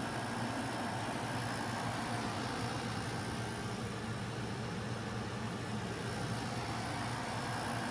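Black+Decker BPACT10WT portable air conditioner running: a steady, unchanging hum with an even rush of air.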